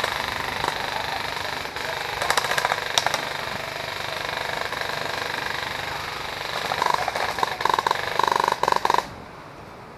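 A steady, fast mechanical rattle of rapid, evenly spaced ticks, with a pulsing tone joining in near the end. It cuts off abruptly about nine seconds in.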